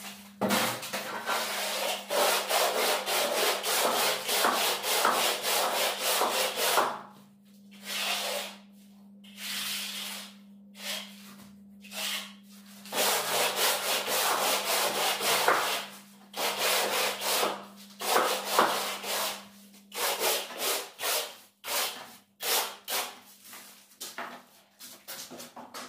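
Plastic hand float rubbing fresh bark-beetle (koroed) decorative plaster on a wall to raise its grooved texture: quick repeated scraping strokes in spells, broken by short pauses.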